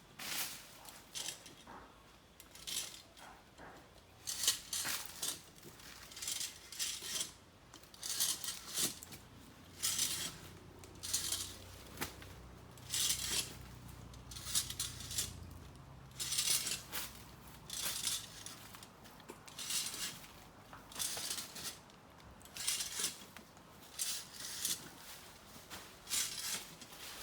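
A coconut tree climbing device clinking and rattling in short, uneven strokes about once a second as the climber works it up the trunk.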